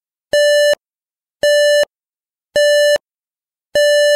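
AUSION electronic travel aid for the blind sounding its feedback: the same electronic beep at one unchanging pitch, repeated four times about once a second. With the device pointed down, the constant tone signals level ground ahead.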